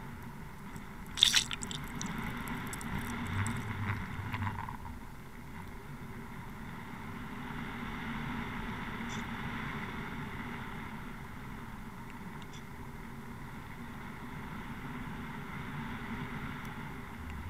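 Steady drone of the trolling boat's engine and propeller, heard underwater through a towed camera's housing, with water rushing past. A sharp click about a second in and light crackling for the next few seconds.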